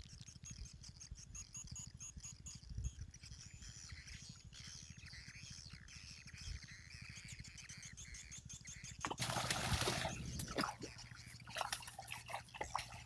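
High, quick chirping of small birds, then about nine seconds in a loud splash and a second or so of thrashing water as a hooked fish fights at the surface, with a few smaller splashes after.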